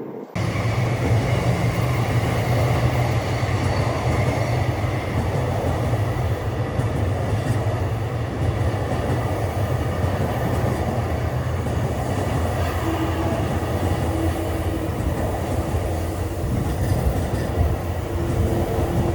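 Electric commuter train running past close by: a steady, loud rumble of wheels on the track that sets in suddenly right at the start and holds throughout.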